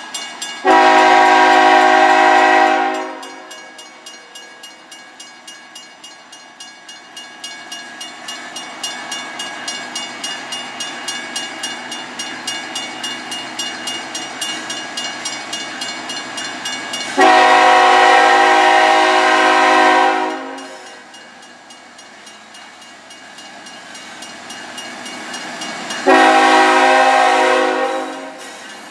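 CSX GE ET44AH locomotive horn sounding three blasts, the first about a second in, the second about seventeen seconds in and the third near the end. Between blasts, train wheels click in a steady rhythm over the rail joints.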